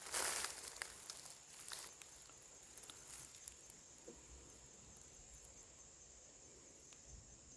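Steady high-pitched insect chorus, crickets or similar, with a burst of rustling and crackling in the first second or two and a few scattered snaps after it.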